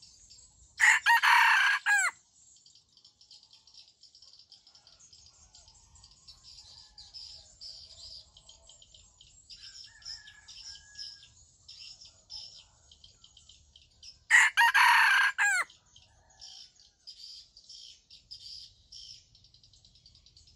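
Junglefowl rooster crowing twice, each crow short and loud, about a second in and again near the three-quarter mark. High insect chirring pulses steadily underneath.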